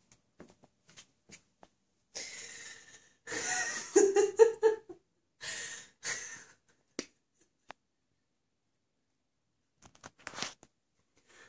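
Cat drinking water out of a drinking glass: lapping and sloshing inside the glass in several short bursts, the loudest about four seconds in with quick repeated pulses.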